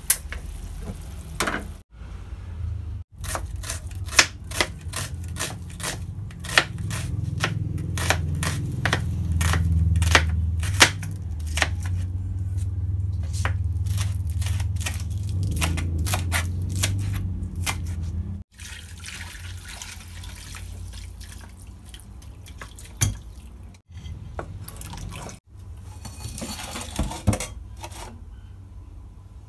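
A kitchen knife chopping green onion on a plastic cutting board: a long run of sharp strikes, two or three a second, over a low hum. Near the end, water sloshing in a steel sink as a bowl is handled and rinsed.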